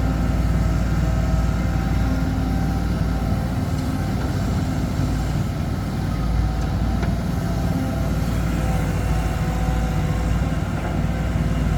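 Heavy diesel engine running steadily at an even pitch, without revving up or down.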